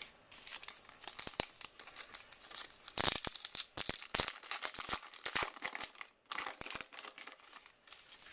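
Crinkling and tearing of a trading-card pack's wrapper being handled and opened: a long run of short crackles, loudest about three seconds in.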